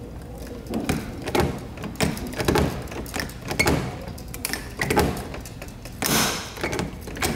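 Hand rivet tool squeezed in repeated strokes, a series of clunks about two a second, setting tri-grip rivets through a kayak pad eye by pulling their mandrels until they snap off. A louder, rasping clunk comes about six seconds in.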